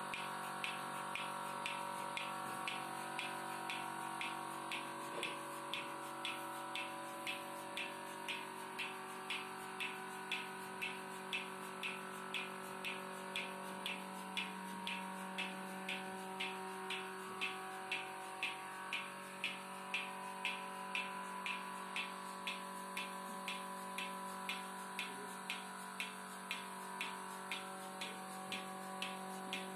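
Milking machine's pulsator clicking steadily, about two clicks a second, over the steady hum of the machine's motor-driven vacuum pump.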